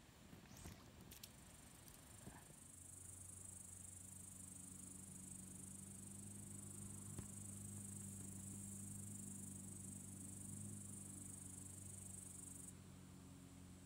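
Faint, high-pitched chirring of insects such as crickets or grasshoppers, which cuts off near the end. A low, steady hum runs underneath, with a few light clicks in the first couple of seconds.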